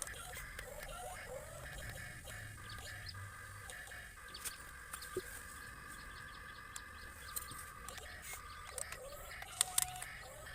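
Chickens clucking in short wavering calls, with scattered sharp clicks, the loudest ones just before the end.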